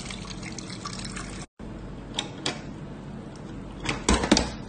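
Melted slush pouring from a slush machine's open dispensing tap into the drip tray, a steady stream of liquid. A couple of small plastic clicks, then a louder clatter about four seconds in as the clear plastic tap cylinder is handled.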